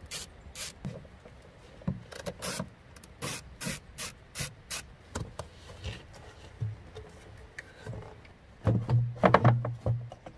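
Hand ratchet loosening an 8 mm hose-clamp screw on an air intake tube, with a sharp stroke about every half second for the first few seconds. Near the end the rubber intake tube is twisted and pulled off its fitting, giving a louder rubbing with a low buzz.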